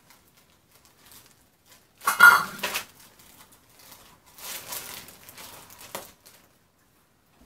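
Clear plastic bag crinkling and rustling as a ready-made green onion pancake is pulled out of it. A short, loud crinkle comes about two seconds in, and softer rustling follows near the end.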